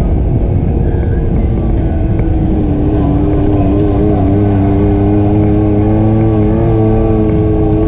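ATV engine running under way on a trail ride, its pitch climbing slightly a few seconds in and then holding steady.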